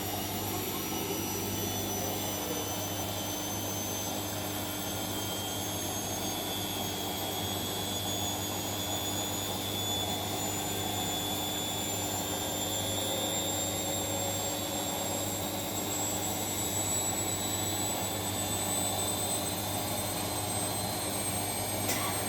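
Siemens washing machine spinning its drum on the final 600 rpm spin of a silk programme: a steady drone with a low hum and a thin high motor whine that creeps slowly upward in pitch.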